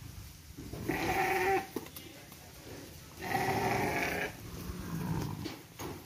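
Amingad sheep bleating: two long, loud bleats about two seconds apart, followed by a softer sound.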